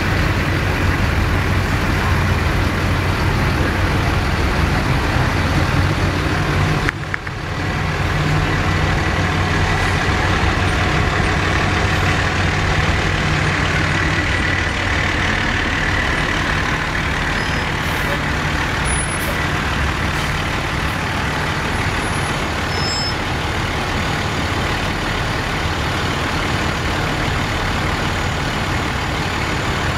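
Heavy fire engines' diesel engines running steadily as the trucks roll slowly past, a continuous low hum with a brief break about seven seconds in.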